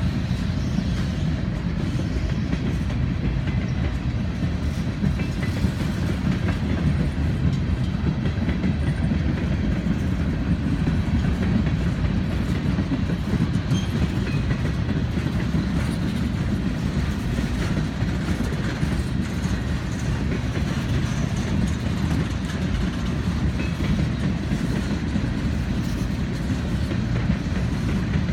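Freight cars of a passing train rolling by at close range: a steady rumble of steel wheels on rail, with light clicking as the wheels cross rail joints.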